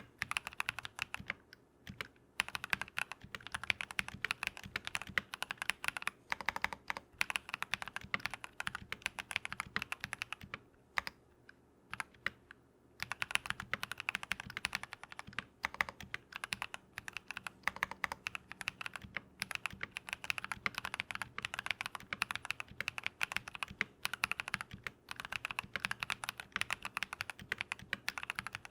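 Steady typing on a modded Keychron V1 mechanical keyboard with lubed Drop + Invyr Holy Panda tactile switches: a dense run of key strokes, broken by a pause of about two seconds roughly ten seconds in.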